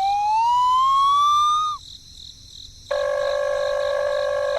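A whistle-like tone glides steadily upward for about two seconds and stops. About a second later a steady, flat, buzzy tone begins and is cut off abruptly at the end.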